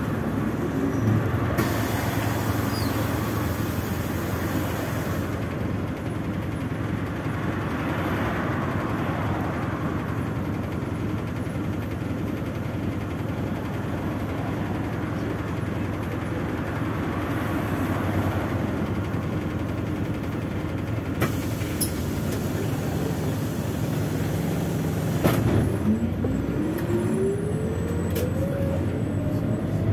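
MAZ 206 city bus heard from inside the passenger cabin while driving: steady engine and road noise. A few seconds of hiss come near the start, two sharp knocks come later, and a rising whine near the end follows the bus picking up speed.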